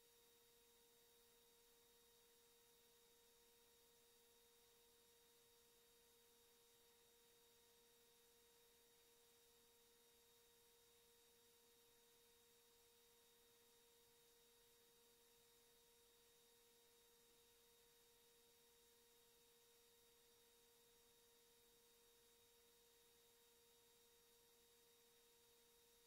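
Near silence, with a faint, steady, unchanging electronic tone.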